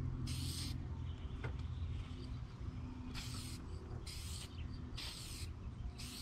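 Aerosol spray paint can hissing in short bursts of about half a second each: one just after the start, then four about a second apart in the second half.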